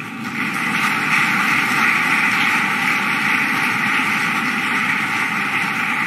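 Large audience applauding steadily, a dense even clatter of many hands clapping.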